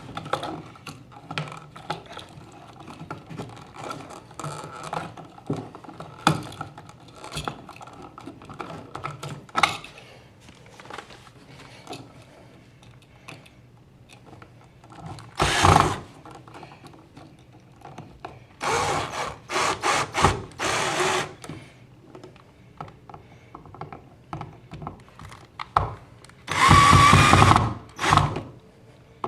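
Cordless drill-driver running in short bursts, driving screws: one brief run, then a cluster of several, and a longer run of about a second and a half near the end. Before that, light clicks of wires and the device being handled.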